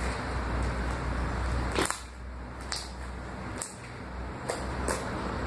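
Homemade slime being spread and worked by hand, giving five or so sharp clicks and pops over a steady background hum that drops away about two seconds in.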